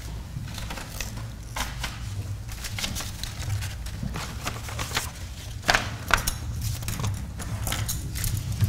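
Scattered light clicks and knocks of things being handled on a table, two sharper ones about six seconds in, over a steady low hum of room and sound system.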